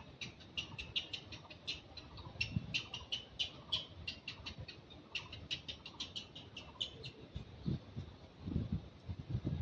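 A quick run of short, high-pitched animal chirps or squeaks, several a second, with a few low thumps near the end.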